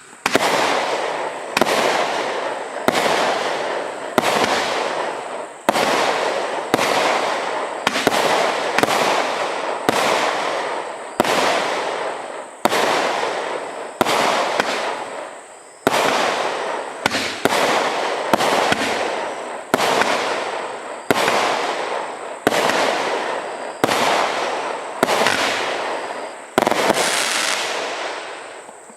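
Consumer firework barrage (cake) firing shot after shot, roughly one a second, each sharp bang trailing off before the next. The last shot fades out near the end.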